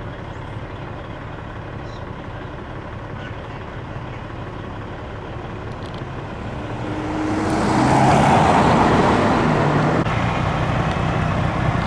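Steady road traffic noise, then a fire truck drives past, its diesel engine and tyres swelling to the loudest point about eight seconds in before easing off.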